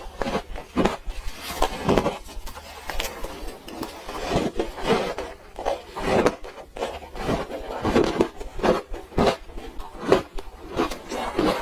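Close-up crunching and chewing of frozen orange ice, a quick irregular run of crisp bites and crunches.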